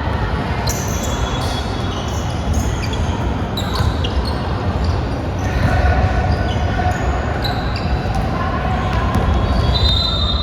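Indoor basketball game in play: a basketball bouncing on the hardwood court, with many short high squeaks of shoes on the floor and players' voices.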